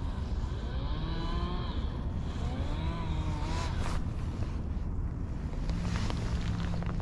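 A vehicle engine running as a low steady rumble, its pitch rising and falling twice in the first four seconds.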